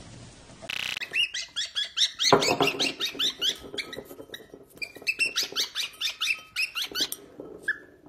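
Cockatiel chirping in a quick run of short, high, rising notes, about five a second, with a brief pause midway.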